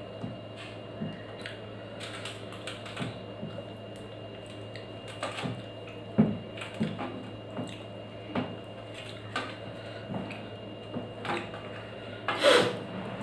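Eating by hand from a stainless steel plate: wet mouth and finger-licking smacks and fingers working food on the steel plate, heard as scattered short clicks over a steady low hum. A louder noise comes near the end.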